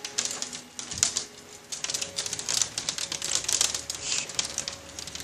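Hailstones pelting down in a heavy hailstorm: a dense, irregular patter of small sharp clicks.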